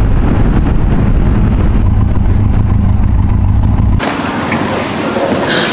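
Benelli TRK 502X motorcycle's parallel-twin engine running steadily under way. It cuts off suddenly about four seconds in, giving way to quieter, fainter sounds.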